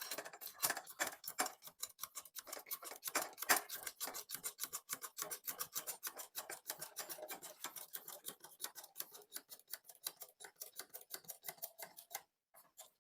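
Rapid, even metallic clicking and scraping, about five strokes a second, stopping about a second before the end, as a ceiling fan's axle is worked into its bearing.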